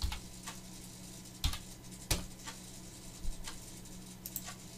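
A handful of sharp, isolated clicks from a computer mouse and keyboard, about five spread over several seconds, while dimension values are entered in CAD software, over a faint steady low hum.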